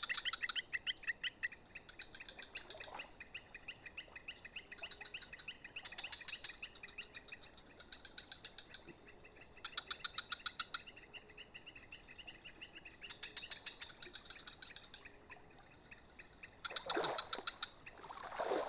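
Chorus of insects: a steady high-pitched drone with rhythmic pulsing chirps over it. A short spell of water splashing comes near the end.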